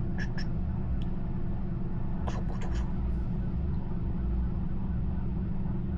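Steady low rumble with a few short, light clicks: a pair about a quarter second in, one at about a second, and a quick cluster between two and three seconds in.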